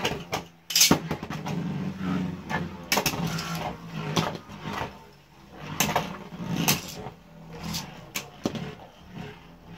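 Two Beyblade Burst spinning tops whirring steadily as they spin in a plastic stadium, with sharp clacks every second or two as they collide.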